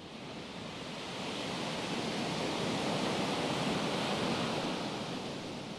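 A rushing noise, like a wave of surf, swells up over about three seconds and then slowly dies away.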